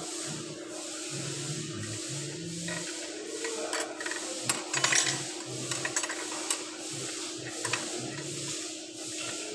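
Short metallic clicks and clinks of clutch plates being set into the clutch drum of a Toyota RAV4 CVT transmission, in a cluster from about four to seven seconds in, over a steady hum.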